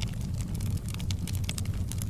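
Wood fire burning in a fireplace, a steady low rumble of flames with frequent small sharp crackles and pops from the logs.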